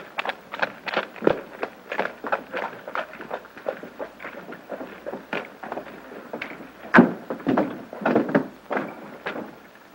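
Footsteps of two men walking in boots: a quick, uneven run of knocks, a few steps a second, with a louder knock about seven seconds in.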